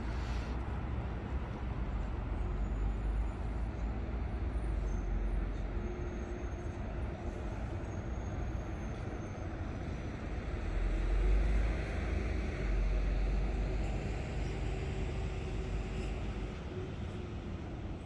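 Steady outdoor city background noise with a deep low rumble, swelling louder about eleven seconds in.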